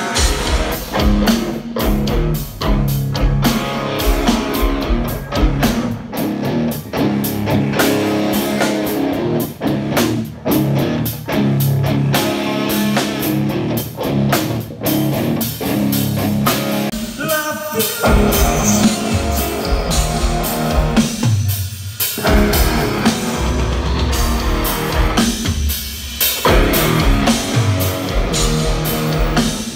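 Rock band playing live at a sound check: drum kit with cymbals, guitars and bass.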